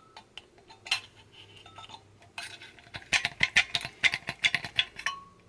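Hard objects being handled: a few separate clicks and taps, then a dense run of rattling clicks lasting about three seconds from about halfway through.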